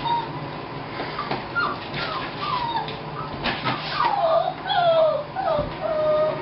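A dog whimpering: a run of short whines that slide down in pitch, coming faster and louder in the second half, with a few sharp knocks earlier on.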